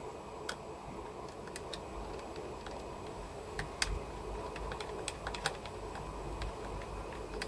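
Small Phillips screwdriver turning the tiny retaining screw of an M.2 NVMe SSD in a laptop's slot: faint, irregularly spaced clicks and ticks of the bit and screw.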